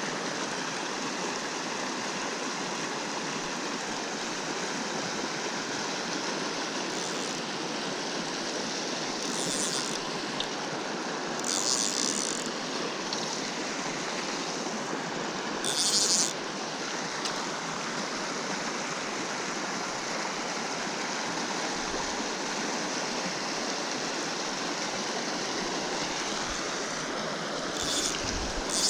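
Small trout stream flowing steadily, with a few brief, sharper hissing sounds on top of the running water.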